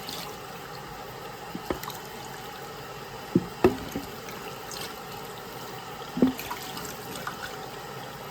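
Water trickling and running steadily, with a few sharp clinks of a utensil or dish, twice close together about halfway through.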